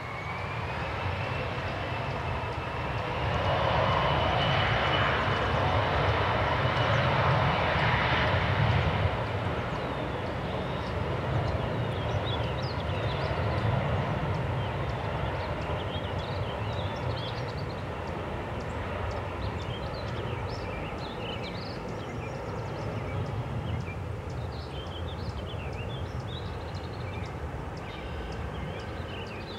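Jet airliner engines: a whine that rises in pitch over the first few seconds, with the engine noise loudest about four to nine seconds in, then slowly fading.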